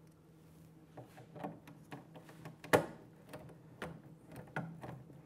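Light, irregular clicks and taps of a small bolt and metal parts being handled and fitted by hand into the topcase lock cover. They start about a second in, with one sharper click near the middle.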